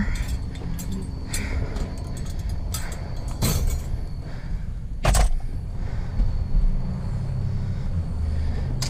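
Scrap metal being loaded into the back of a van: a few knocks and clanks, the loudest about five seconds in, over a steady low rumble.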